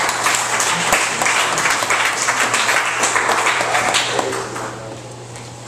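A small seated audience applauding, a dense patter of hand claps that dies away about four seconds in.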